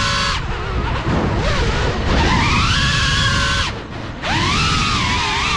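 Motors and propellers of a Cinelog 35 FPV cinewhoop drone whining, the pitch of the whole whine rising and falling with the throttle over a rush of air. The whine thins out about half a second in, and again near four seconds when the throttle is cut, then surges back up.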